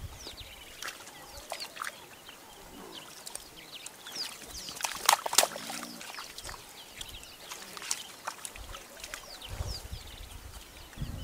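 Warthogs splashing and sloshing through a muddy wallow, loudest about five seconds in. Many short, high bird chirps repeat throughout.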